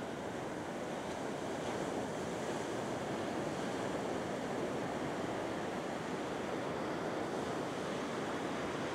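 Surf breaking on a sandy ocean beach: a steady wash of waves.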